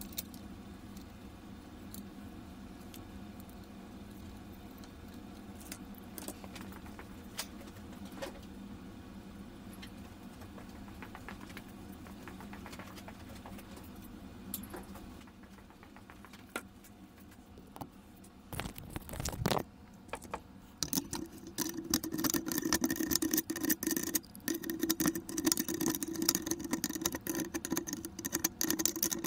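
Hand work on an opened battery charger: small metal parts, wires and tools clicking and rattling against the steel case. The handling is light and sparse at first, with a brief louder scrape about two-thirds in, then turns into busy, rapid clicking and jangling near the end.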